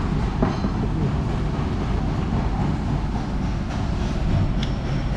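Steady low mechanical rumble, with a few faint clicks and taps.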